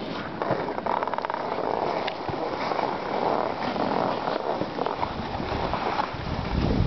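Edges sliding and scraping over firm groomed snow as the rider moves down the slope, a steady hiss, with low wind buffeting on the microphone building from about five seconds in.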